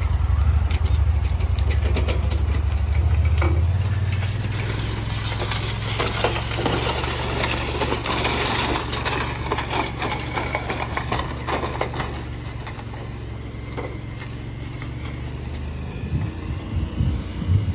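Engine running steadily, loudest in the first few seconds, with rattling and knocking noises through the middle.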